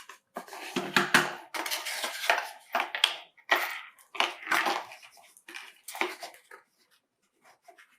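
Handling of the switch's packaging and accessories: irregular rustling and crinkling with small clicks and clinks, as of small metal screws being handled. It stops about six and a half seconds in.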